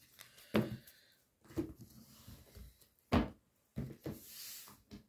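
Oracle cards being pushed and slid across a cloth reading mat on a table. Several soft knocks and thumps, with a sliding rustle about four seconds in.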